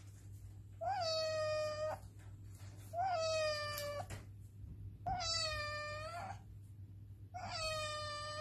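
A colourpoint cat meowing four times, one long call about every two seconds. Each meow rises briefly at the start and then holds a level, slightly falling pitch. The last call runs on at the end.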